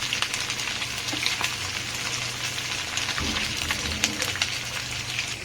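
Batter-coated chicken pieces deep-frying in hot oil: a steady sizzle with many small crackles.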